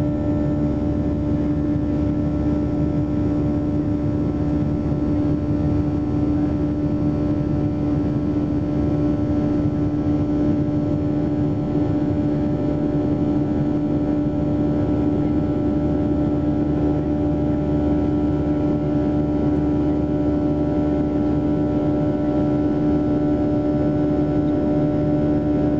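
Boeing 737-800's CFM56-7B turbofan engines during the climb after take-off, heard inside the cabin over the wing: a steady drone with a strong hum and several fainter held tones above a rushing noise.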